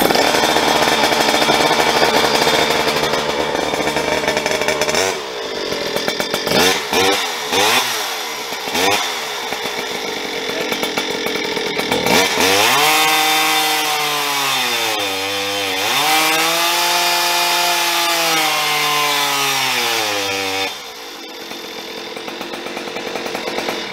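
Farmertec G395XP 94cc two-stroke chainsaw engine with a tuned exhaust pipe, on a dyno. It catches from a pull start and runs steadily, is blipped up and down several times, then is held wide open in a long run. The revs climb, dip briefly and climb again before dropping back to idle near the end.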